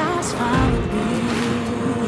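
Background music with a held, slightly wavering melody line.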